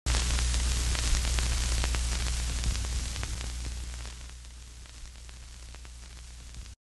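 Analog TV static: an even hiss over a low steady hum, with scattered crackles. It fades over the first few seconds and cuts off suddenly near the end.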